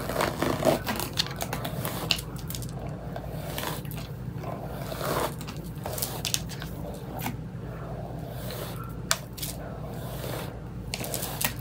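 Paddle brush pulled through long straight wig hair in repeated, irregular strokes, with scraping and rustling, over a steady low hum.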